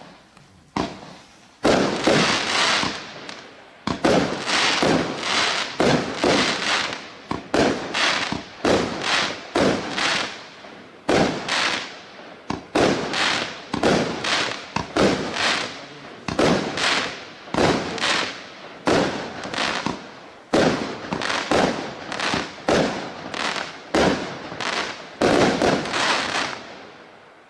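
A 0.8-inch, 25-shot consumer firework cake firing shot after shot, about one a second. Each sharp launch bang trails off into the crackle of a coconut-shaped crackling star burst.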